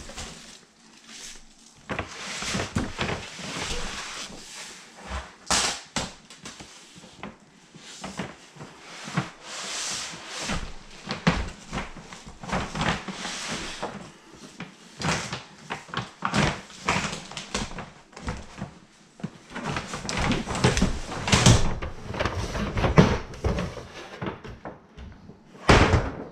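Cardboard fireworks case and the cakes inside being handled: irregular rustling and scraping with sharp knocks, the loudest in the second half.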